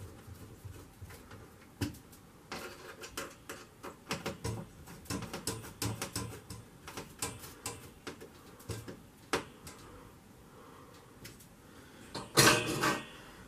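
Hand screwdriver turning a screw into a metal bracket inside a freezer cabinet: a run of small clicks, scrapes and squeaks. Near the end comes a short, loud clatter, the loudest sound.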